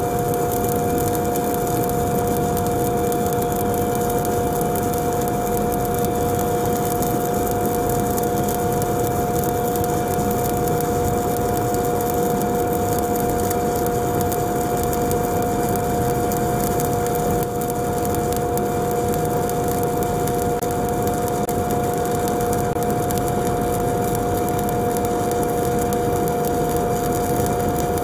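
Stick (SMAW) welding arc from a 7018 electrode burning steadily along a horizontal groove joint as the rod is weaved up and down: a loud, even hiss, with a steady two-note hum underneath.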